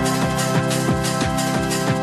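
Electronic dance music in a happy hardcore/house style: a fast kick drum about three beats a second with hi-hats under sustained Korg Wavestation synthesizer chords.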